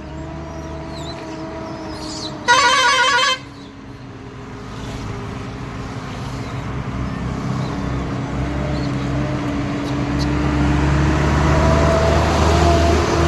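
Road vehicle engine running, with one loud horn blast lasting under a second about two and a half seconds in. Afterwards the engine grows steadily louder and its pitch rises, as a vehicle accelerates or draws near.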